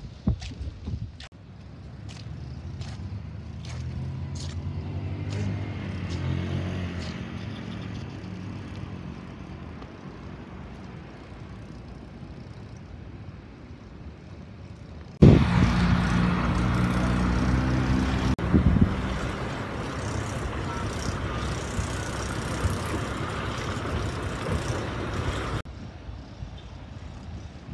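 Motor vehicle engines passing. One swells and fades over several seconds. About halfway through, a louder, closer engine starts abruptly, eases off after a few seconds, runs on, and cuts off suddenly a couple of seconds before the end.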